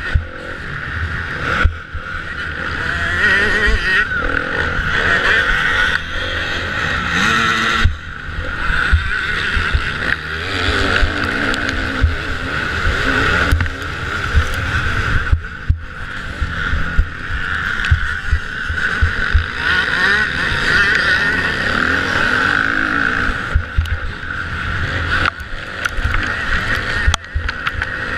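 Kawasaki motocross bike engine running hard under throttle while racing, with a few brief drops where the throttle is shut. Wind and bumps buffet the bike-mounted camera.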